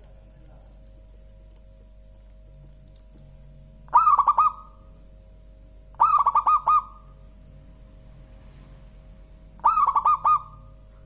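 Zebra dove (perkutut) cooing: three short phrases of quick repeated coos, the first two about two seconds apart and the third about three and a half seconds later.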